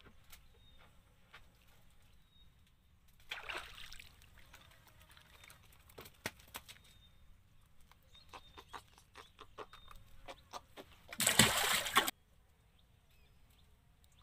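Water splashing beside a small wooden boat: a short splash about three seconds in, a run of small clicks and knocks, then a louder splash of about a second near the end.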